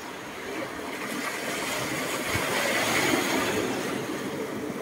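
Sea water washing in over a pebble shore: a rush that swells to a peak about three seconds in and then fades.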